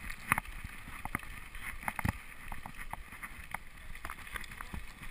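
Mountain bike rolling over a loose gravel track: tyres crunching on stones with irregular clicks and rattles from the bike, over a low wind rumble on the microphone.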